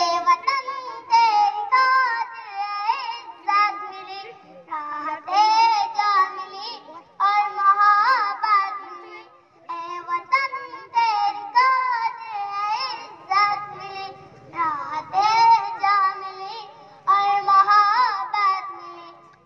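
A child's voice singing a song, in phrases of a few seconds with short breaks between them, with little instrumental backing.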